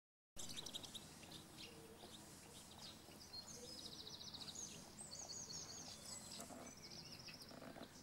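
Small songbirds calling: a few short high chirps, then three fast high trills of rapidly repeated notes, each about a second long, over a faint steady outdoor background.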